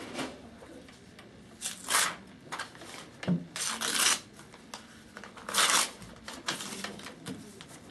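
Paper rustling in three short bursts as a sheet or booklet is handled on a table, with a few light taps and one soft knock in between.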